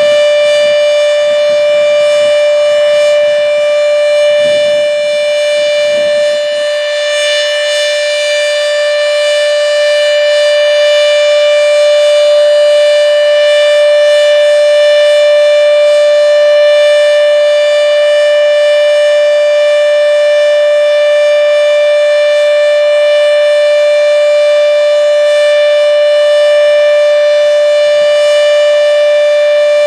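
H.O.R. Siro Drone outdoor warning siren sounding the steady Alert signal: one unbroken, loud tone with many overtones, held at the same pitch without rising or falling.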